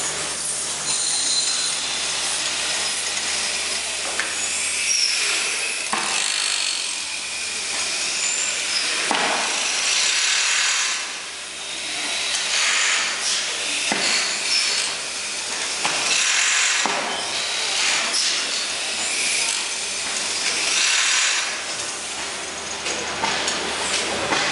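Large 600 hp Snow gas engine starting up and running: repeated hissing puffs, roughly one every one to two seconds.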